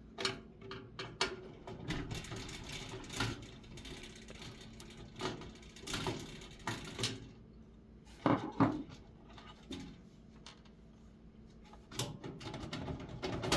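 Screwdriver and hand handling noise inside a sheet-metal computer case as the motherboard screws are worked loose: irregular clicks, scrapes and knocks, with two louder knocks about eight seconds in and denser rattling near the end.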